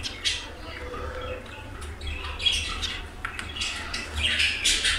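Small cage birds chirping and squawking in a string of short, high calls, loudest near the end.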